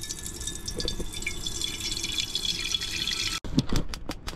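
Water running steadily from a faucet into a container. It cuts off abruptly about three and a half seconds in, followed by several sharp clicks and knocks near the end.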